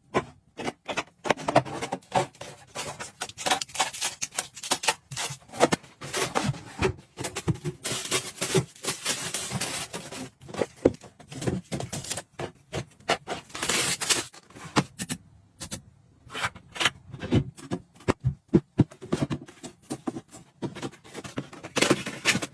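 Small objects and containers being handled and set down by hand: a busy run of clicks, taps and light knocks, with stretches of scraping and rustling.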